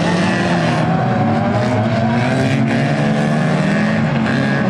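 Engines of several 2-litre banger racing cars running together as the pack races on a dirt oval, a loud steady mix of overlapping engine notes.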